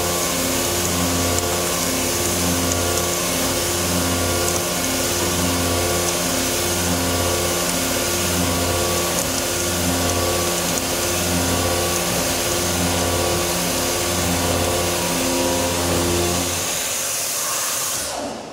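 DIAEDGE WJX 63 mm high-feed milling cutter dry helical-milling a hole in SCM440 (AISI 4140) alloy steel: a steady machining hum with a high hiss, the hum swelling and fading regularly about every second and a quarter. Near the end the cutting sound stops and only a fainter hiss is left.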